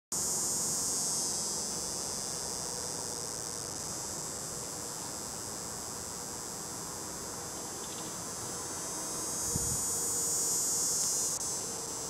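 Cicada buzzing: a steady, high-pitched drone that swells in the first second and again for about two seconds near the end, then drops off suddenly.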